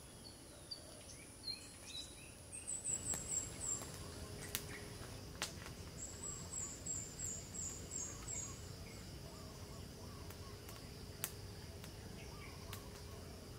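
Outdoor ambience with birds singing: two runs of quick, high, repeated chirps a few seconds apart, over a steady high insect buzz and a few faint clicks.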